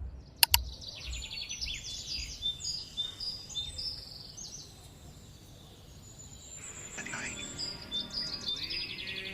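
Birds chirping, with runs of quick, repeated high notes. Two sharp clicks about half a second in are the loudest sounds.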